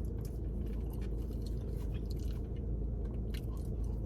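A person chewing food, with short scattered mouth clicks, over a steady low hum.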